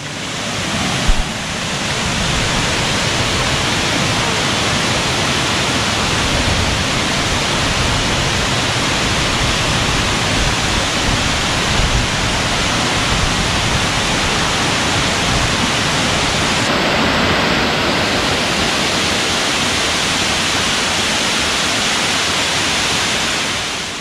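Waterfall cascading over rock ledges: a steady rush of falling water that rises over the first second or two and drops away near the end.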